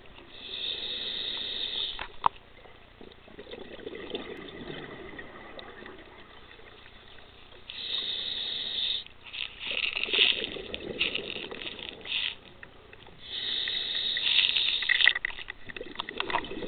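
Scuba diver breathing through a regulator underwater: three breaths about six seconds apart, each a hissing inhale of about a second and a half followed by a longer crackling rush of exhaled bubbles. A single sharp click about two seconds in.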